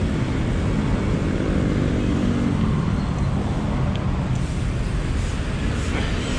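Steady rumble of road traffic and wind on the microphone of a moving bicycle's camera, with a nearby motor vehicle's engine note swelling and fading in the first half.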